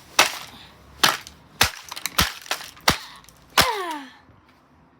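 Plastic casing of a fan heater being smashed: six sharp cracking blows, roughly half a second to a second apart, with plastic breaking.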